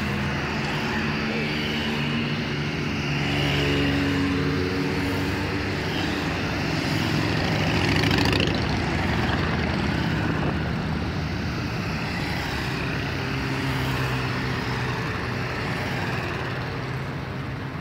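Cruiser motorcycles passing one after another, their engines running steadily. The engine note falls in pitch as a bike goes by, and the sound swells loudest as one passes close about eight seconds in.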